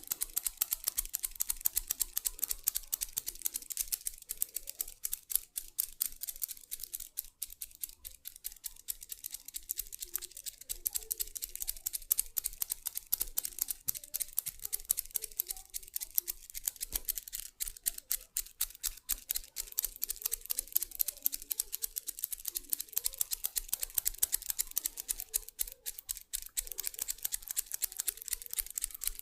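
Dense, rapid clicking and crackling close to the microphone, many irregular clicks a second without a break.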